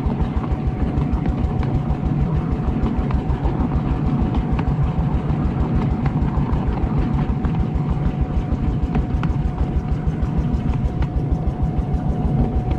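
Miniature railway train running along the track: a steady low rumble with a constant whine above it and occasional sharp clicks as the wheels pass rail joints.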